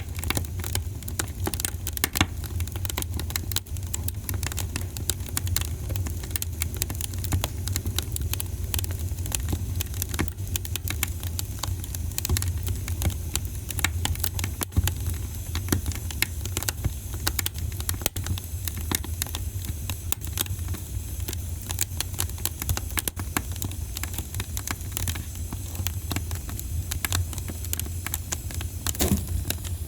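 Wood fire in a fireplace crackling, with frequent small pops and snaps over a steady low rumble, and one louder pop near the end.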